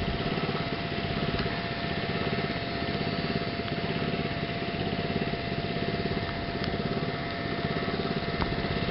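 A small motor running steadily, a drone with a constant mid-pitched whine through it, over a rough noise haze.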